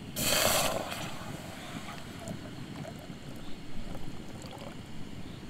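Jetboil backpacking stove burning on a Primus gas canister, a steady low rushing, with a brief loud hiss about a quarter of a second in.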